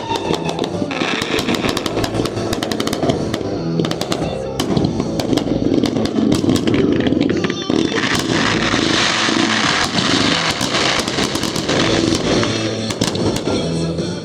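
Fireworks finale: many bangs and crackles going off in quick succession, with music playing underneath.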